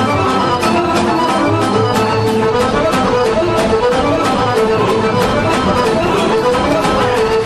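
Lively traditional folk dance music, a melody played over a fast, steady beat of about four to five strikes a second.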